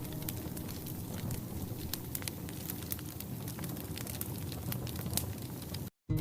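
Wood fire crackling in a fireplace, with frequent sharp pops over a low steady hiss. The sound cuts out completely for a moment near the end.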